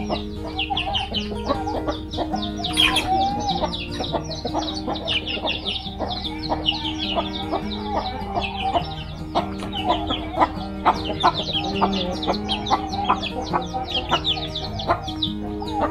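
Free-range chickens clucking all the way through, with frequent quick, high chirps over the clucks. Background music with slow held notes plays under them.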